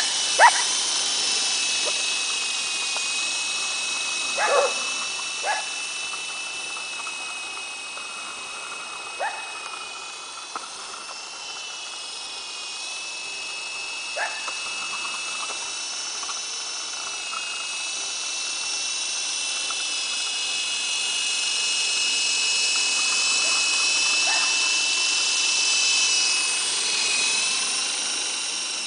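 Esky Big Lama coaxial electric RC helicopter in flight, its motors and rotors giving a steady high whine that wavers a little in pitch and grows louder towards the end. Dogs bark a handful of times in the background.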